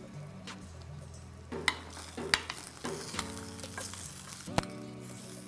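A metal spoon scraping and clinking against a hot glass baking dish as roasted chicken drumsticks are turned over, with the cooking juices sizzling. Several sharp clinks stand out, the loudest about one and a half, two and a half and four and a half seconds in.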